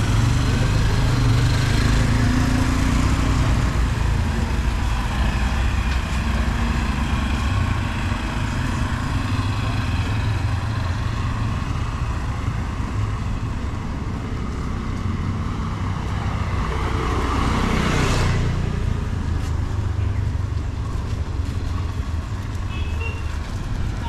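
Street traffic: vehicle engines run in a steady low rumble, and one vehicle passes close about three-quarters of the way through, its engine note dropping as it goes by.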